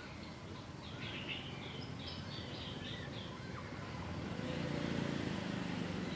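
Outdoor background noise with a small bird chirping a quick run of about ten high notes. Near the end a low rumble swells up, like a vehicle passing.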